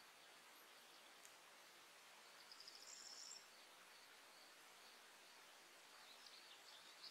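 Near silence: a faint steady hiss of outdoor ambience, with one brief, high, rapid trill about two and a half seconds in and a few faint high chirps near the end.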